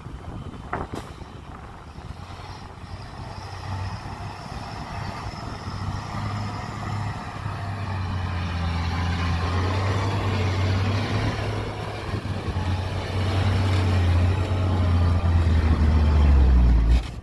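Heavy diesel vehicle engine running with a low, steady hum, growing louder through the clip and loudest near the end, then cutting off suddenly.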